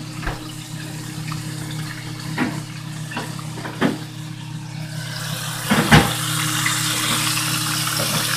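Kitchen tap running, starting about five seconds in, after several sharp knocks of dishes or utensils, the loudest just after the water starts. A steady low hum runs underneath.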